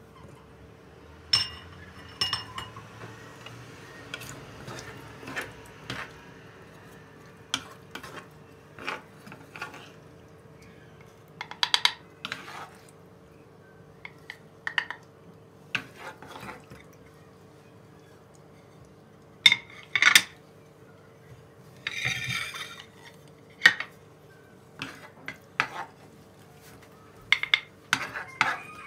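Cookware and utensils clinking, knocking and scraping as food is served with a wooden spoon from a frying pan onto a ceramic serving dish; some clinks ring briefly. A faint steady hum runs underneath.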